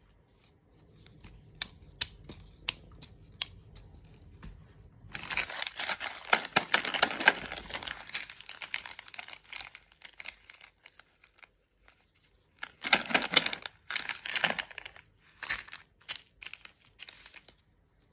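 Plastic sweet packaging crinkling and rustling as it is handled: Cadbury Gems packets and the wrapped Gems surprise ball. A few light clicks and taps first, then dense crinkling from about five seconds in, with more short bursts near the end.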